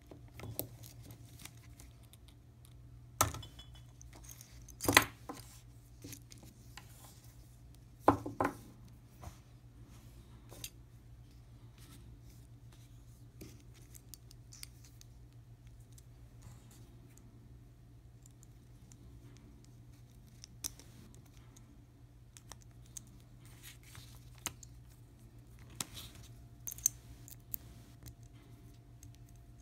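Scattered small metal clicks, taps and scrapes of an Allen key and loose steel parts (end bracket, pin) being worked against the body of an air-blowing pneumatic valve during disassembly. The sharpest clicks come about three, five and eight seconds in, with another cluster near the end.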